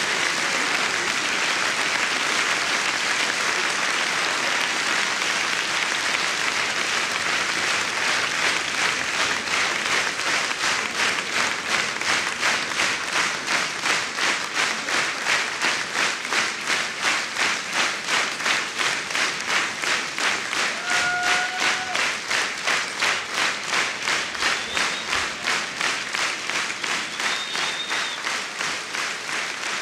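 Concert audience applauding. The scattered applause turns, about ten seconds in, into rhythmic clapping in unison, roughly three claps a second.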